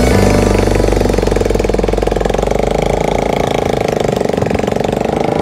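Small fishing boat's engine running with a rapid, even pulsing beat.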